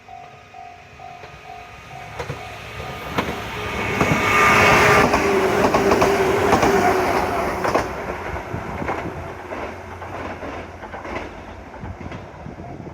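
A JR West 103 series 3500-subseries electric train passes over a level crossing, running hard: wheels clatter over the rail joints under the traction motors' whine, which dips slightly in pitch as the train goes by. The sound builds over the first few seconds, is loudest about four to seven seconds in, then fades. A level-crossing bell rings steadily, about two to three strikes a second, until the train's noise covers it about two seconds in.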